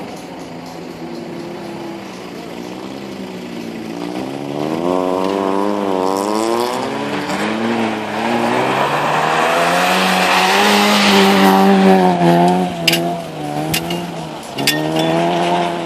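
Race car's engine revving hard through a corner, its pitch rising and falling again and again with throttle and gear changes. It grows louder to its closest pass about ten seconds in, then fades and revs up once more near the end, with a few sharp clicks between.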